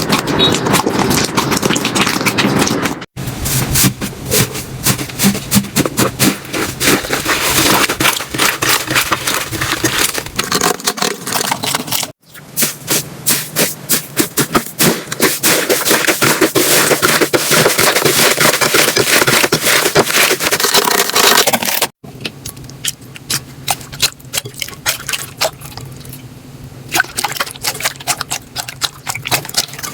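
Slime being squished and pressed by hand, making dense crackling and popping clicks. Abrupt cuts about 3, 12 and 22 seconds in split it into four clips, and the last one is quieter.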